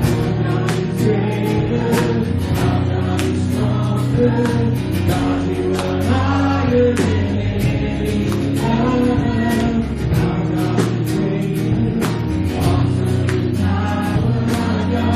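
Live church worship band music: sustained chords with a regular drum beat, and voices singing together without clear words.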